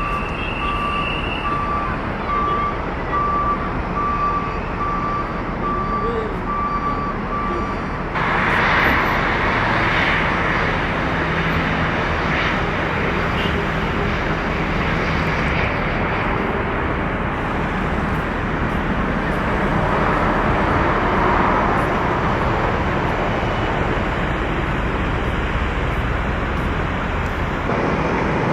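Steady jet aircraft engine noise at an airport. For the first eight seconds a vehicle's reversing beeper sounds over it at a steady rate. About eight seconds in, the engine noise gets abruptly louder and brighter and holds steady after that.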